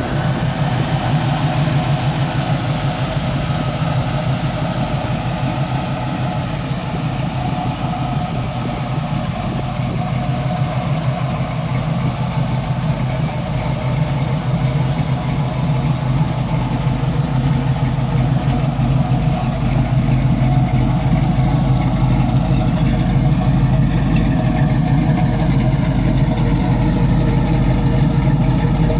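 Camaro Z28's 383 cubic inch stroker V8 running steadily through its exhaust, getting a little louder in the last third.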